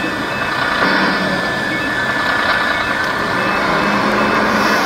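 Radio-controlled scale model fire engine driving slowly: a steady engine-like running sound with a thin, steady high tone over it.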